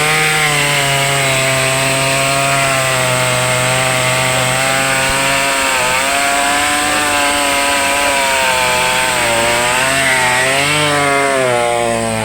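Chainsaw engine running at high speed without a break. Its pitch dips and comes back up about halfway through and again near the end.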